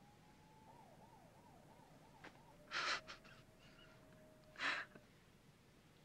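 Two short, sharp exhaled breaths about two seconds apart. Before them, a faint high tone rises and then wavers quickly up and down.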